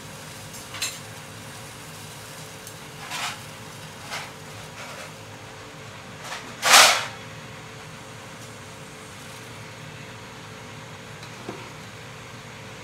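Leftover water drops in an empty metal pot heating on a gas burner, hissing and spitting off in a few short bursts, the loudest about seven seconds in, over a steady low hum.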